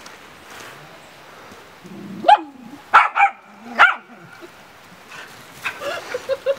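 Dogs barking: four sharp, loud yapping barks between about two and four seconds in, then a quick run of softer yips near the end, as puppies squabble with an adult dog over a piece of bread.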